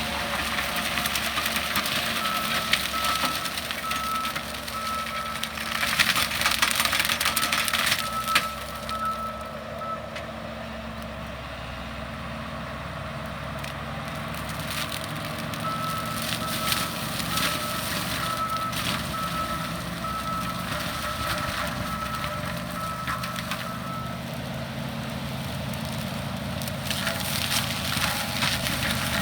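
John Deere 333G skid steer running under load with a forestry disc mulcher, its reversing alarm beeping at about three beeps every two seconds in two spells. Loud crackling bursts of wood being shredded by the mulcher disc come about six to eight seconds in and again near the end.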